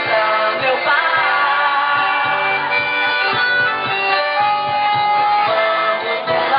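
Band music in a São João forró style, with an accordion holding long notes over guitar and a steady beat.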